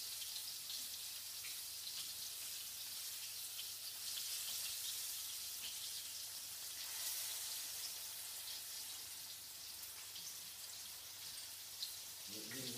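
Flour-coated chicken breast pieces shallow-frying in oil in a pan: a steady sizzle with small crackles and pops.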